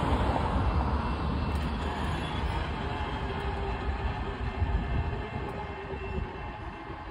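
CSX mixed freight train rolling past, a steady rumble of locomotive and rail cars that eases off over the last couple of seconds.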